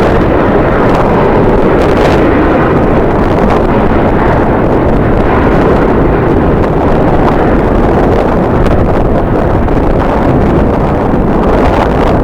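Strong wind buffeting the microphone: a loud, steady rumbling noise heavy in the low end.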